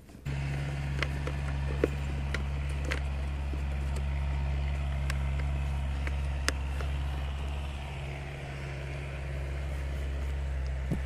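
A steady low engine-like hum starts abruptly about a quarter second in and runs on unchanged. Over it come a few light clicks and taps of the starter relay and its plastic connectors being handled.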